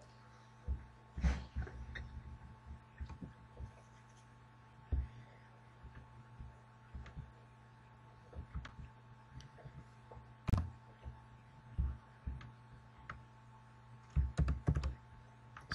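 Scattered soft knocks and clicks of a laptop's keyboard and mouse being worked, picked up faintly by the microphone, with the loudest knock about two-thirds of the way through and a quick cluster near the end. A low steady hum runs underneath.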